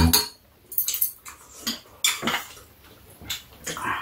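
Metal chopsticks and spoons clicking and scraping against bowls and pots while eating, several sharp clinks at irregular intervals.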